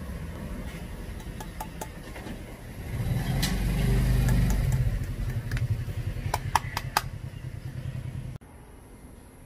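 Low rumble of vehicle traffic that swells as a vehicle passes about three seconds in, then eases. A few short, sharp ticks come near the end, and the sound then cuts off abruptly.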